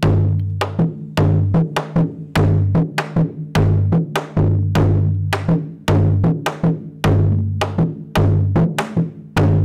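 Drums from a traditional Colombian Pacific music example playing a quick, steady rhythm. The low drum strokes alternate between two pitches.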